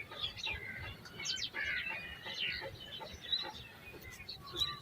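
Several small birds chirping, with quick, overlapping high calls and short pitch slides throughout.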